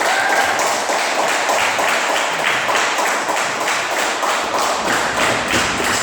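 Small crowd clapping and applauding, many hand claps close together.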